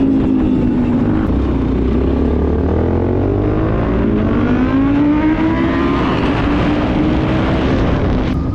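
Motorcycle engine running while riding: it drops in pitch as the throttle comes off, climbs again as it accelerates, then holds steady, with low wind rumble on the microphone.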